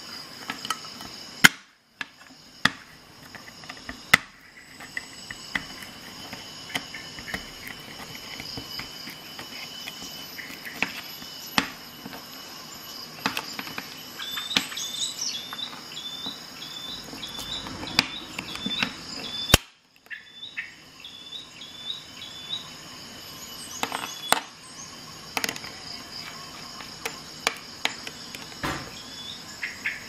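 Pocket-knife can opener cutting a tin can lid in short levering strokes: irregular sharp metal clicks and snaps as the hooked tip punches and tears through the tinplate, with light scraping in between.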